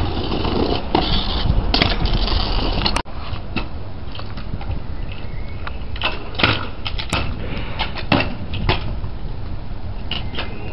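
Kick scooter's wheels rolling over concrete paving in a steady rumble, broken by several sharp clacks of the deck and wheels striking the ground in the second half.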